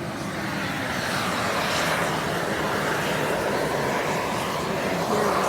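Beryl Spring, a boiling hot spring, venting steam and gas with a steady, loud rushing hiss that swells slightly about a second in.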